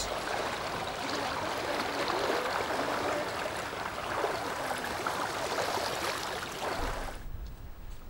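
Shallow river water splashing and rushing around the legs of people wading across, a steady watery noise that cuts off about seven seconds in.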